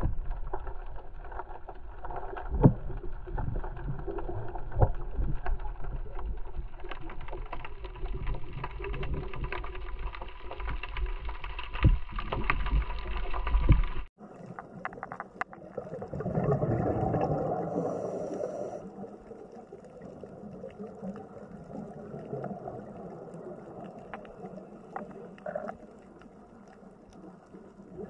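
Underwater sound picked up by a camera in the water: low, muffled rumbling and sloshing of water with scattered clicks. About halfway through it cuts off abruptly to a quieter underwater recording, with a swell of gurgling a few seconds after the cut.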